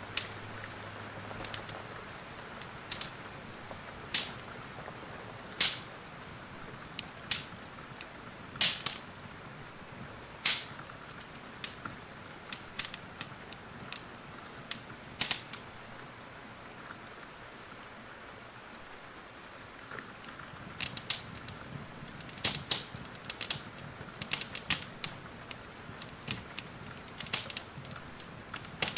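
Wood fire crackling with sharp, irregular pops over a steady hiss of rain. The pops come thicker in the last third.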